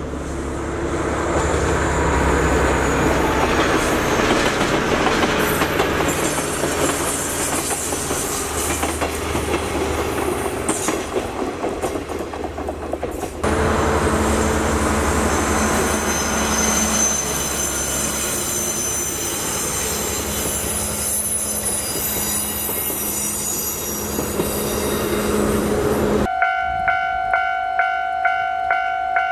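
Diesel-hauled sightseeing train passing on a rural single-track line: engine running under the steady rush and clatter of wheels on rail, heard in two separate passes with an abrupt cut between them. Near the end the train sound drops away and a ringing alarm pulses about twice a second, typical of a Japanese level-crossing warning as the next train approaches.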